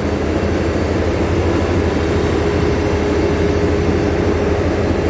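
Taiwan Railway's R167 diesel-electric locomotive idling beside the platform: a steady low engine rumble with a constant hum.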